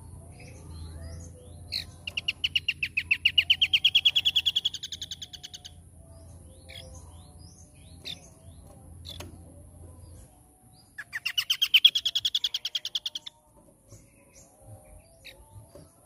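Caged asi topi sisik (scaly-crowned babbler) singing: two long, fast trills of rapidly repeated notes that rise in pitch, the first about two seconds in and the second about eleven seconds in, with soft short chirps between them.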